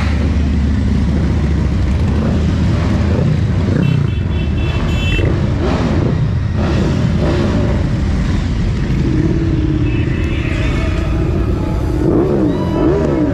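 A procession of large cruiser and touring motorcycles rides past at low speed, their engines rumbling together steadily. One bike revs up and down near the end.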